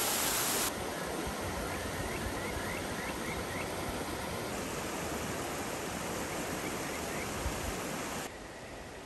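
Mountain stream rushing steadily, its sound changing abruptly about a second in and again near the end. A small bird gives a quick series of short rising chirps, then two more later.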